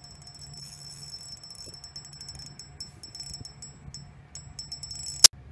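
Spinning reel's drag ticking rapidly as a hooked sturgeon pulls line against light tackle, over a low steady hum. A single sharp click sounds just before the end, and the ticking stops with it.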